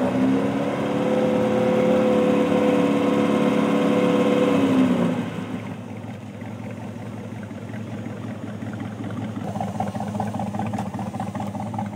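Off-road race vehicle's engine running loud at a steady pitch, then dropping slightly in pitch and fading about five seconds in. A quieter engine sound with a wavering pitch carries on after that.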